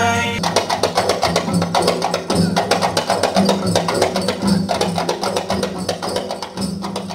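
Traditional Minangkabau dance music: a sustained melody stops about half a second in, giving way to fast, dense percussion of sharp wood-block-like strikes over a low pitched drone.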